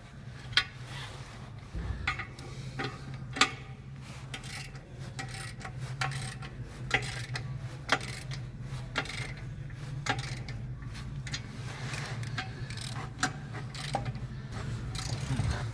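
Irregular metallic clicks and knocks, a second or two apart, as a truck's clutch pressure plate is fitted onto the flywheel, over a steady low hum.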